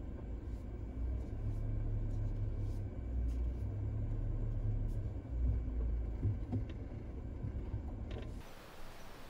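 Suzuki Jimny Sierra (JB74) on the move: a steady low engine and road rumble with a few light knocks. It cuts off suddenly near the end to a quiet outdoor hiss.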